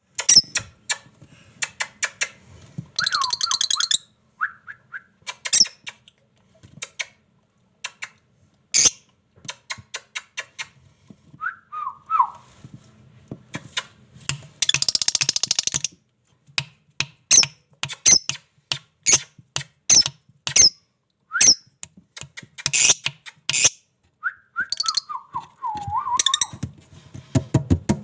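Pet parrots calling: quick sharp high chirps throughout, a few short falling whistles, and two longer harsh screeches, one about three seconds in and one near the middle.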